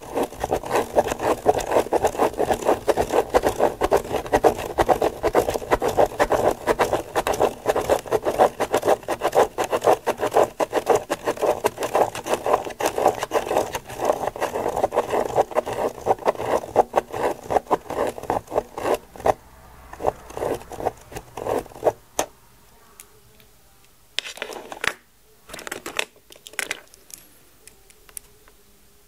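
Plastic Spirograph gear wheel driven around the inside of a toothed ring by a pen on paper: a fast, dense clicking and rattling of gear teeth with pen scratching, which breaks into a few short bursts and scattered clicks after about twenty seconds.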